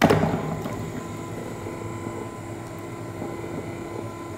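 Electric motor of a pestle-and-mortar mixing machine switched on at its first, slow speed (about 38 rotations a minute), turning a pestle through honey and rock salt in a ceramic mortar. A sudden start, then a steady hum.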